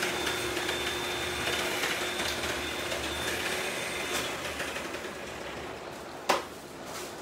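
Cellophane wrapping on flower bouquets crinkling as they are handled and put down, with a faint steady hum behind it. A single sharp knock comes about six seconds in.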